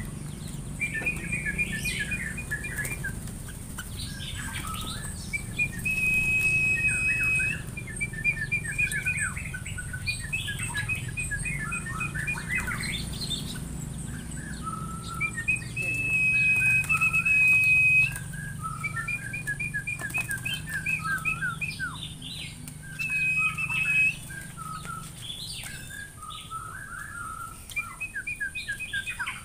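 Songbirds singing: quick runs of chirps and calls, broken three times by a long, high, steady whistled note.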